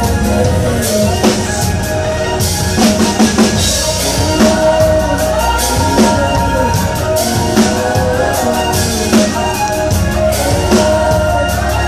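Live electropop band playing, with a woman singing lead over a drum kit and keyboards, heard loud from within the audience.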